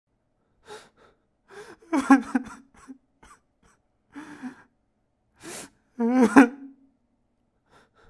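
A young man crying: gasping, shaky breaths broken by two louder sobbing whimpers, at about two seconds and six seconds, whose pitch quavers, with short pauses between.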